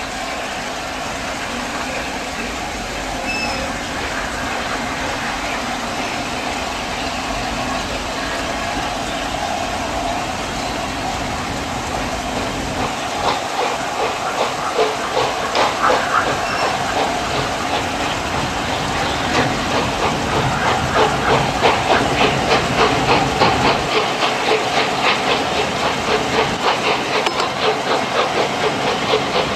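LNER A4 Pacific 60009 Union of South Africa's three-cylinder steam locomotive running at the head of its train, heard from a carriage close behind: a steady hiss and rush at first, then from about halfway in its exhaust beats come through loud and regular, several a second.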